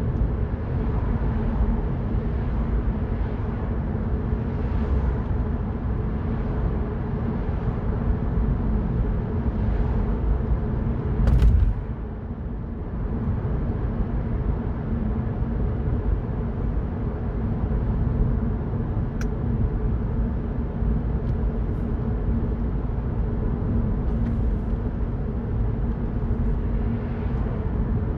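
Mini Cooper Cabrio driving, its engine running steadily under the constant rumble of road and tyre noise. About eleven seconds in there is one short loud thump, followed by a moment's dip in the engine sound before it picks up again.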